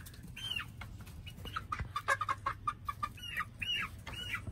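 Two-month-old chicks peeping, several short rising-and-falling calls, with a quick run of lower, clucking notes in the middle.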